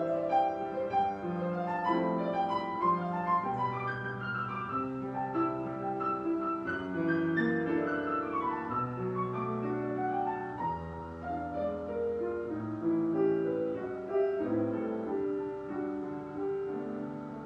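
Solo jazz piano on a grand piano: a melody moving over held chords, getting a little softer near the end.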